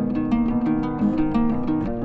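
Background music: a melody of plucked-string notes, several a second.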